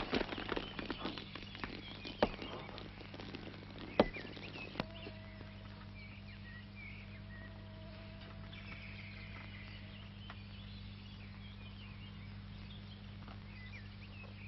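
A glass christening bottle smashing against a boat, the crash dying away over the first second or so. A few sharp knocks and faint bird chirps follow over a steady low hum.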